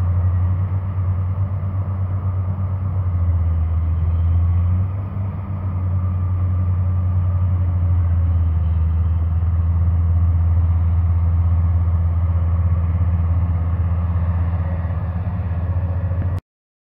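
Steady low diesel engine rumble from a hydraulic excavator working on a sand barge, easing briefly about five seconds in and cutting off suddenly near the end.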